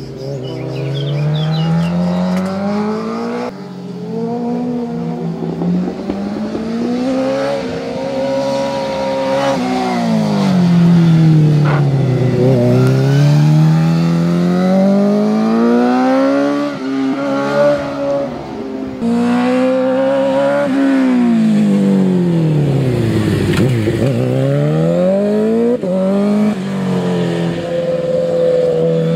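Suzuki GSX-R 750 inline-four racing engine pulling hard up through the gears and revving high, its pitch climbing in long sweeps and dropping back several times as the bike shifts and slows for bends. The sound jumps abruptly a few times.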